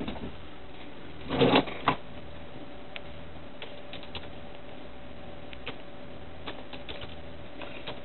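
Faint, scattered clicks of computer keyboard keys being typed, over a steady faint hum, with one brief louder sound about a second and a half in.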